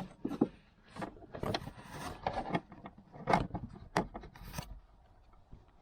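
Irregular clicks, knocks and scraping of seat-belt hardware and car interior trim being handled and fitted by hand.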